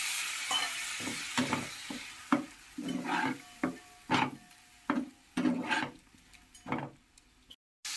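Stainless steel spatula scraping and stirring watery masala in a black kadai, about two strokes a second. At first a sizzling hiss from the water just added to the hot masala fades away over the first couple of seconds.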